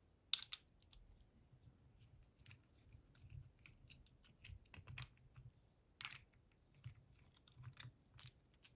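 Faint, scattered clicks and taps of small metal parts as a homemade socket is worked off a Bramah-style pump lock, with a sharper click about half a second in and another around six seconds.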